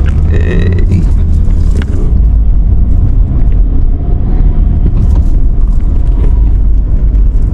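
Car cabin noise while driving slowly: a steady low rumble of engine and road, with a brief high-pitched tone just after the start.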